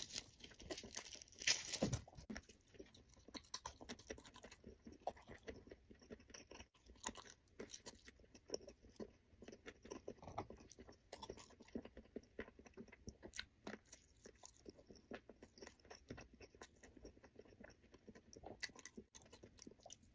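Close-miked chewing of Northeastern blood and glutinous-rice sausage: faint wet mouth sounds and small irregular clicks, with a louder bite about a second and a half in.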